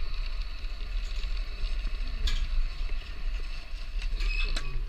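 Zip line trolley pulleys running on the steel cable, creaking and squealing, with a sharp click about two seconds in and a short rising squeal and knock near the end. A low wind rumble sits on the microphone underneath.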